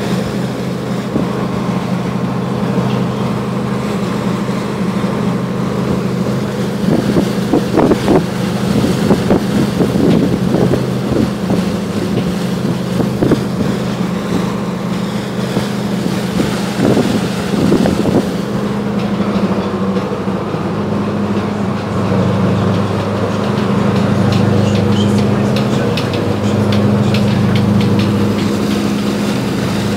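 Cacilheiro river ferry's engines droning steadily while under way, heard on board, with wind gusting on the microphone in the first half. The low engine hum grows a little stronger in the second half.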